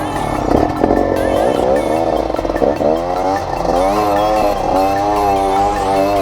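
Off-road trail motorcycle engine revving, its pitch surging up and down about twice a second.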